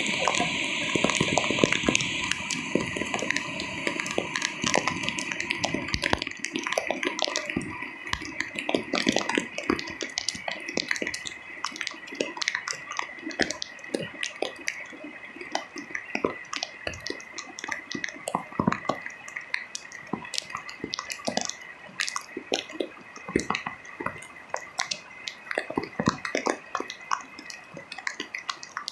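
Rain dripping and tapping irregularly on a nearby surface: a dense patter in the first couple of seconds that thins to scattered, sharp drips.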